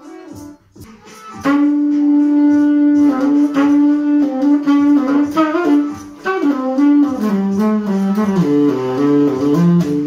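Saxophone playing a jazz solo over a looped backing track. About a second and a half in, a long held note starts, and a moving melodic line follows that steps down lower toward the end.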